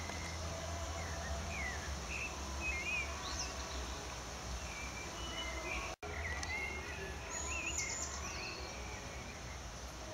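Outdoor ambience of small birds chirping and singing in short gliding calls over a steady low rumble. The sound drops out for an instant about six seconds in.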